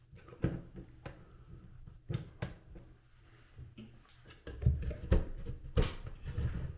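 Sheet-metal knocks and clicks of a bathroom exhaust fan's motor assembly being handled and worked loose inside its metal ceiling housing: a few sharp clicks in the first half, then a run of louder knocks and thumps over the last two seconds.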